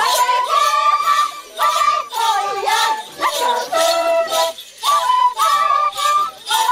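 Andean carnival music: a high melody of short held notes, with small bells jingling in a steady beat.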